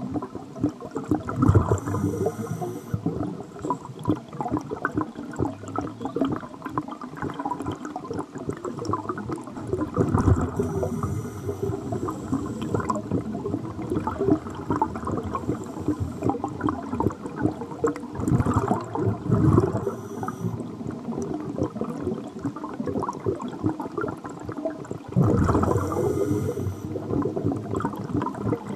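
Underwater recording of scuba breathing: a burst of exhaled regulator bubbles about every eight seconds, four times, over a steady gurgling of water.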